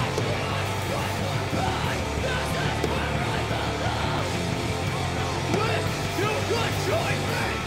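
Live punk rock band playing: electric guitars, bass and drums, with a vocalist yelling over them.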